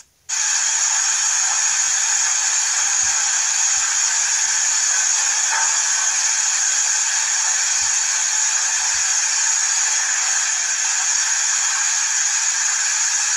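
A loud, steady hiss that starts abruptly and runs on without a break, with no speech over it.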